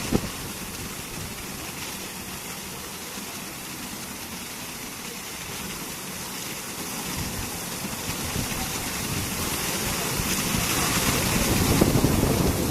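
Automatic car wash machine at work: a steady rush of water spray with machine noise, growing louder over the last several seconds. A sharp knock sounds right at the start.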